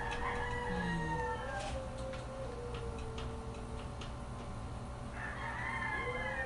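Rooster crowing twice: one long crow dies away about two seconds in, and another begins near the end.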